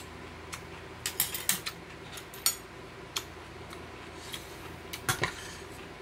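Metal cutlery clinking and tapping against ceramic bowls and dishes during a meal: a scatter of short sharp clicks, the loudest about two and a half seconds in, with small clusters near the start and again about five seconds in, over a faint steady hum.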